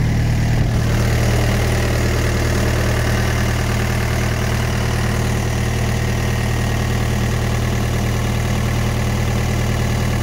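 Thermo King trailer refrigeration unit running, its small diesel engine turning at a steady, unchanging speed.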